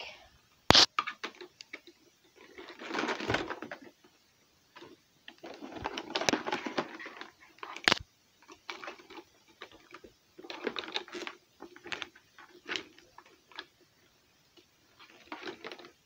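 Irregular rustling and clattering of handling, with a couple of sharp clicks, as a carpet cleaner's power cord is wrapped up.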